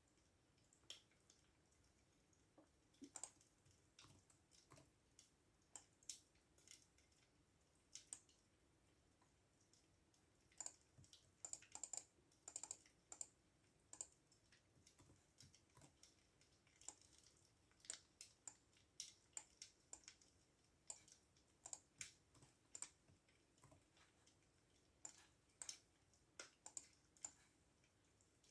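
Computer keyboard typing: quiet key clicks in irregular spurts. They are sparse at first and come in quicker runs after about ten seconds, with short pauses between.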